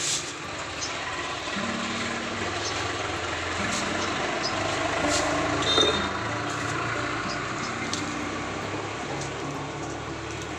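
Dry leaves and twigs catching and burning in a clay mud stove: a steady rushing crackle with a few sharp pops.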